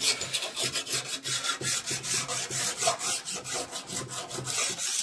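Flat steel file rasping in quick, even back-and-forth strokes along the side of a chainsaw bar's steel rail, taking off the burrs that rail filing has pushed over the edge. The file's rasp marks how far the burr stands over on that side of the bar.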